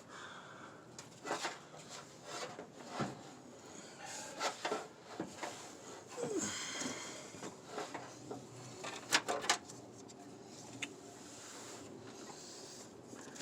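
Hands rummaging through engine-bay wiring and parts: scattered clicks, light knocks and rubbing, with a couple of sharper clicks about nine seconds in.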